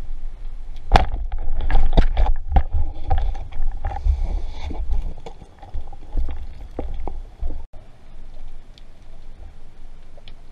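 Muffled underwater sound picked up by a speargun-mounted camera: a steady low rumble of water, with a run of sharp clicks and knocks in the first half that quiets after an abrupt break about three-quarters through.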